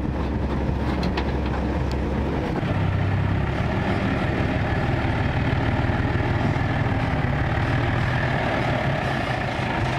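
Heavy diesel engine of earth-moving machinery running steadily under work, its low hum stepping up in pitch about two and a half seconds in. A few faint clanks come in the first two seconds.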